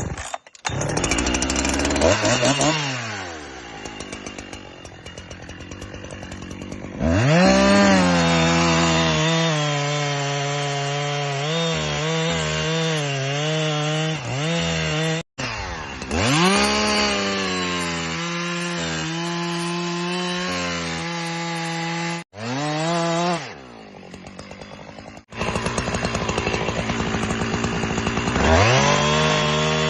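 Husqvarna 365 single-cylinder two-stroke chainsaw felling timber: the engine runs at high revs while cutting, drops back toward idle and revs up again several times, with a few abrupt breaks.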